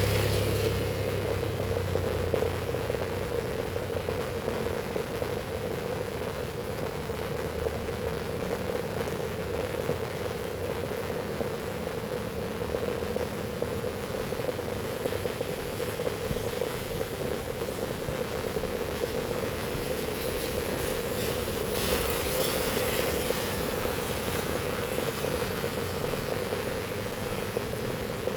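Heavy rain falling steadily, a constant hiss. A low rumble fades away over the first couple of seconds, and the rain briefly grows louder and brighter a little past the middle.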